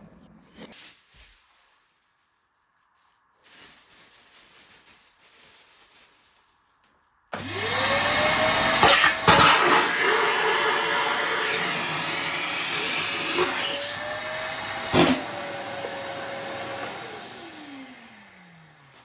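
Karcher WD 3 wet-and-dry vacuum cleaner switched on about seven seconds in: the motor spins up to a steady whine with rushing air, with two sharp knocks while it runs. Near the end it is switched off and its pitch falls as it winds down. Faint rustling handling before it starts.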